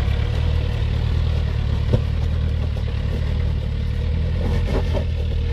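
Land Rover Discovery's engine running at low revs as the 4x4 crawls over rocks, a steady low hum. A single knock about two seconds in and a few clicks near the end.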